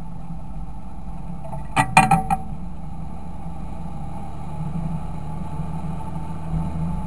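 Fendt 926 Favorite tractor's six-cylinder diesel engine running at a steady speed. About two seconds in, a quick cluster of sharp clicks or knocks, the loudest sound here.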